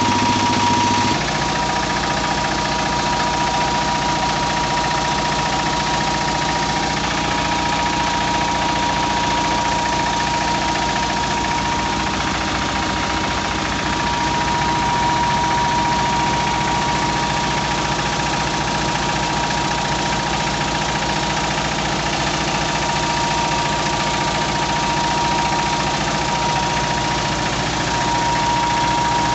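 A 25 hp Petter diesel engine running steadily at a flour mill (atta chakki), with a rapid, even knock and a steady high-pitched whine over it.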